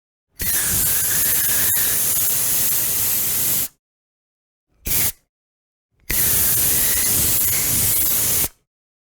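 Aerosol spray can hissing in three sprays: a long one of about three seconds, a short puff near the middle, and another long spray of about two and a half seconds, with a faint whistle under the hiss.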